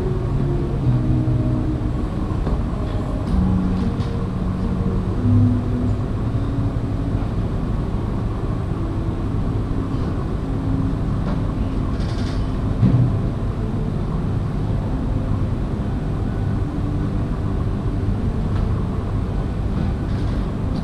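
Muffled background music, heard mostly as deep bass notes shifting in pitch, over a steady low rumble, with a single thud partway through.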